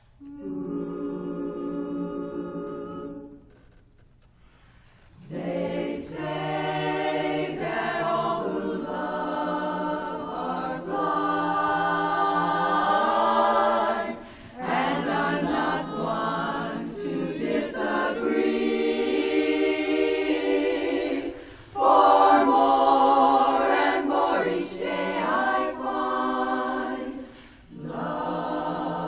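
Women's barbershop chorus singing a cappella in four-part harmony: a held chord opens, then a pause of about two seconds, then the song gets under way in phrases with short breaks between them.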